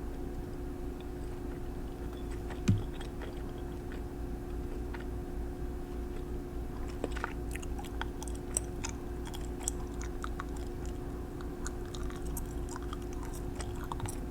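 Small close-up clicks and crackles from handling nail-care items, over a steady electrical hum, with one soft thump about three seconds in; the clicking gets busier in the second half.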